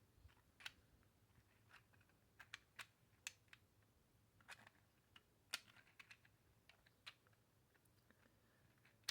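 Faint, irregular plastic clicks and light knocks from the pieces of a 3D-printed 2x2x1x1 puzzle being turned quickly to scramble it.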